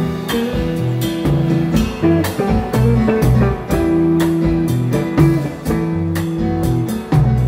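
Live dance band playing an instrumental passage, with drum kit and keyboard carrying sustained melody notes over the drum strokes.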